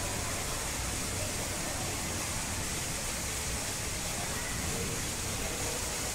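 Steady hissing background noise with faint voices of people talking in the background.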